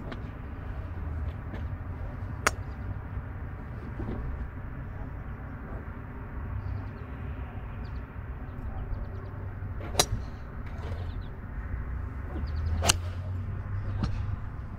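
Golf club striking balls off a driving-range mat: three sharp clicks, about two and a half seconds in, about ten seconds in and the loudest about thirteen seconds in, over a steady low rumble.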